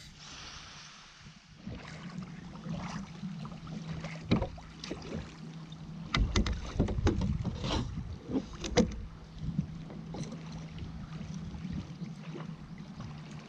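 Kayak being paddled on the sea: paddle splashes and water sloshing against the hull, with irregular splashes thickest in the middle and a steady low hum underneath.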